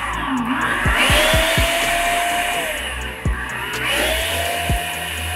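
Food processor motor blending a thin green dressing in short runs: it whirs up to speed, holds about a second and a half, and winds down. The end of one run falls at the start, and two more follow, about a second in and near the end.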